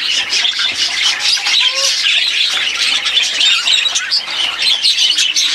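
A flock of budgerigars chattering, with many overlapping chirps and warbles.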